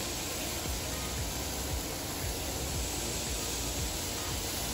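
Chicken sizzling on a grill: a steady hiss, with a low rumble underneath.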